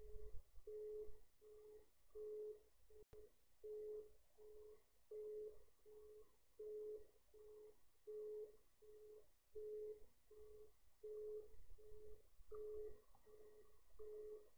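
Faint telephone busy tone heard over the phone line: a single low beep repeating evenly, about two a second. The bank's system has dropped the call after its 'unable to take your call' message.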